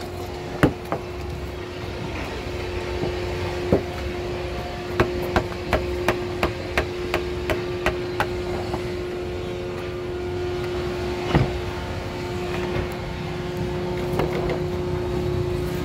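Wood carving chisel being struck into wood: a few single sharp blows, and about a second in a run of about ten blows at roughly three a second. A steady hum runs underneath throughout.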